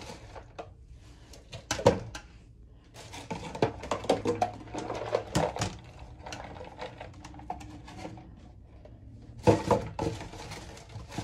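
A metal mesh strainer and a plastic container being handled in a stainless steel kitchen sink as chopped callaloo is moved into the strainer: scattered clatter and knocks of metal and plastic, loudest about two seconds in and again near the end.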